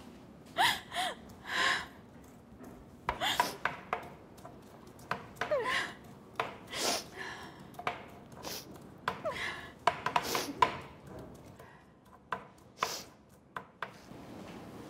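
Food being handled at a kitchen counter: an irregular series of short scraping and rubbing sounds, some with a brief squeak, in quick clusters with pauses between.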